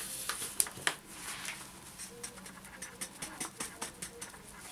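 Flour being poured from a paper bag into a metal sieve over a bowl: soft rustling with irregular light taps and clicks.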